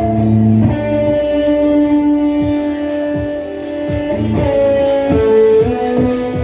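Band playing, led by guitar: long held notes that change pitch every second or two over a regular low beat.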